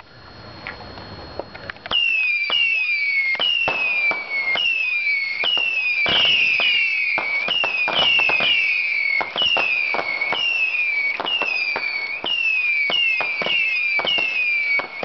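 Pyro Predator 325-shot Saturn missile battery firing, starting about two seconds in: a steady stream of small whistling rockets launched in quick succession, each whistle falling in pitch, overlapping one another, with sharp cracks throughout.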